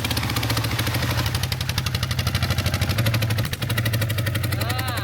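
Single-cylinder diesel engine of a two-wheel walking tractor ("iron buffalo") running steadily with an even firing beat.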